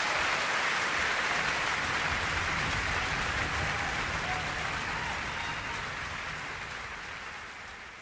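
Audience applause, a dense steady clapping that gradually fades out toward the end.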